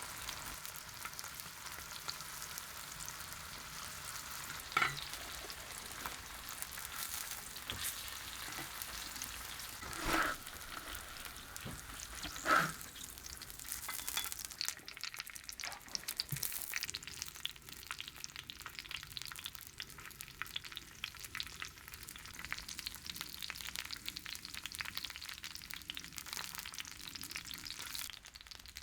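Food frying in hot oil: a steady sizzle with crackling that grows denser about halfway through, and three sharp knocks in the first half.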